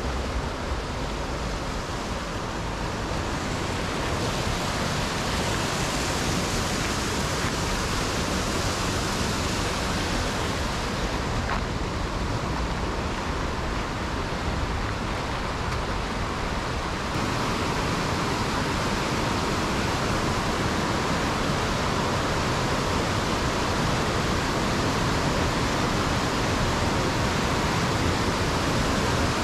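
Steady roar of rushing water from a fast river or waterfall, an even noise with no let-up.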